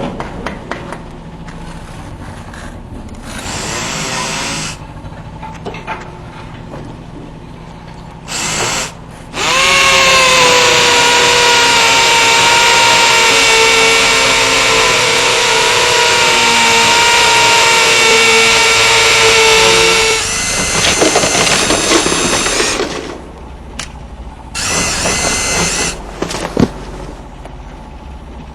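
Electric power drill running: two short bursts, then a loud steady whine for about ten seconds, followed by a rougher, rattling stretch and another short burst.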